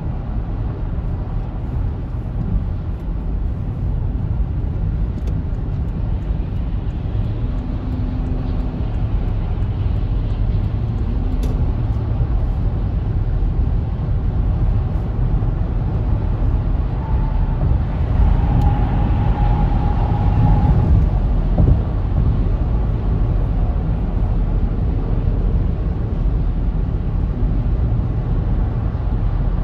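Car driving at highway speed, heard from inside the cabin: a steady low rumble of tyres and engine that swells a little about two-thirds of the way through.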